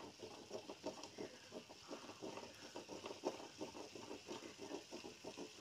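Beaten egg frying in oil in a steel pot while being stirred: faint sizzling with quick, irregular scraping and crackling from the stirring.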